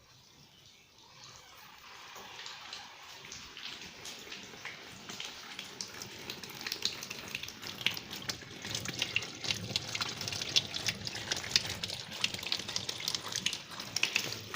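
Tap water running into a washing machine tub, the splashing growing steadily louder.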